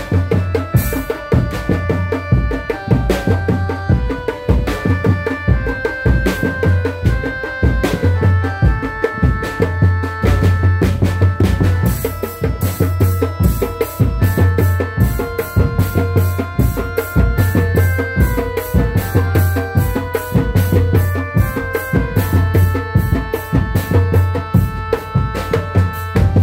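Drum-led music: fast, steady drumming with a repeating deep drum pattern underneath, and a melody of held notes that steps up and down above it.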